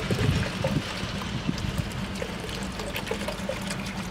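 Water from a garden hose running steadily through a muslin bag of small animal bones and pouring into a galvanised metal bucket of rinse water.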